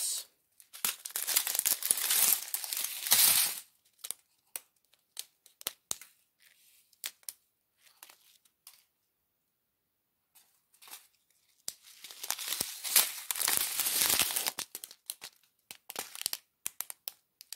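Clear plastic diamond-painting drill bags crinkling and rustling as they are handled, in two bouts, with scattered light clicks between them and a quiet stretch in the middle.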